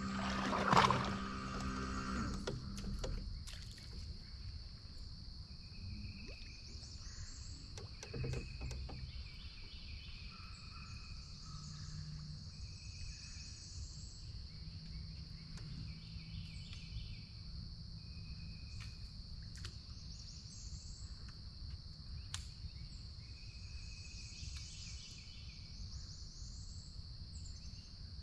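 Swamp ambience: a steady high insect drone with repeated short animal calls over it. A low motor hum fades out over the first few seconds, with a sharp loud sound about a second in.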